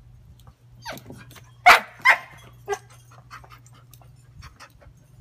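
A dog gives a short whine falling in pitch, then two loud barks about half a second apart, followed by a softer third bark.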